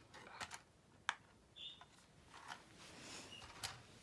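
A few sparse light clicks and a brief rustle from a small folding camera drone being handled, its plastic body and arms knocking in the hands. The sharpest clicks come about a second in and again near the end.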